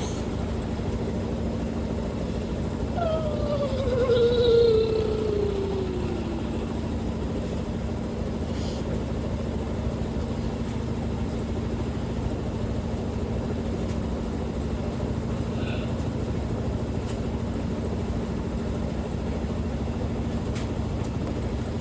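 Washing machine spinning at high speed in its spin cycle, a steady hum. About three seconds in, a tone slides downward over about three seconds, briefly louder than the hum.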